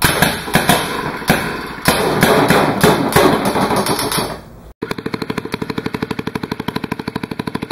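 Weed-trimmer engine converted into a compressed-air engine, running on air: loud irregular sharp air blasts for the first few seconds, then after an abrupt break a fast even chuffing of about ten puffs a second. Its air valve is timed by a reed switch, which is working.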